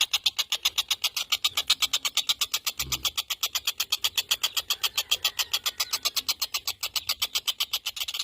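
Tengkek buto kingfisher calling: a fast, even rattle of sharp, high notes, about ten a second. There is one low thump about three seconds in.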